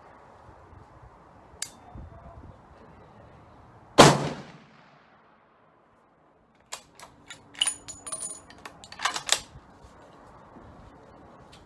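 A single shot from a Ruger American Go Wild bolt-action rifle in .300 Winchester Magnum, fitted with a muzzle brake: one very loud, sharp report with a ringing tail. A few seconds later comes a run of metallic clicks and clacks as the bolt is worked to eject the spent case and chamber the next round.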